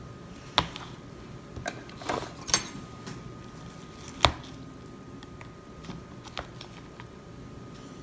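Knife clinking and scraping against a plate while cutting soft waffle with cream: a handful of sharp clicks, the loudest about half a second, two and a half and four seconds in.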